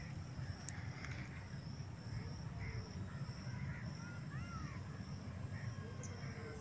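Birds calling with short chirps scattered throughout, over a steady high-pitched pulsing drone and a constant low rumble.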